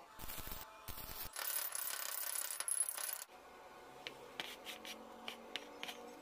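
Metal scraping and rubbing as a thin steel rod is worked against a homemade steel bending jig, stopping abruptly after about three seconds, then a run of light metallic clicks.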